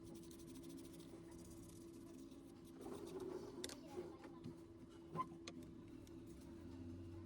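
Faint steady hum with a brief patch of rustling or scraping about three seconds in and a few small, sharp clicks.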